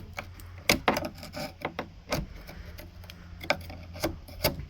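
Uneven, scattered clicks and knocks of hands handling and working the corroded parts of a Jeep Cherokee XJ's stuck rear hatch latch, over a faint steady low hum.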